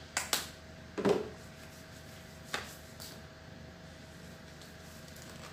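A few short clicks and a knock from handling a small plastic hand-sanitizer bottle: two quick clicks at the start, a louder knock about a second in, and another click about two and a half seconds in, over a faint steady hum.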